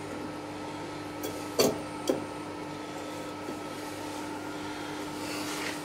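Steel steering-box parts being handled as a bearing race is fitted onto a tractor steering column shaft: a couple of sharp metal clicks about a second and a half in, over a steady hum.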